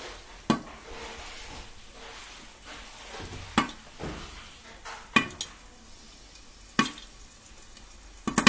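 Dried corn kernels popping inside a covered pot as they toast into maíz tostado: about six sharp cracks at uneven gaps of a second or two over a faint steady sizzle.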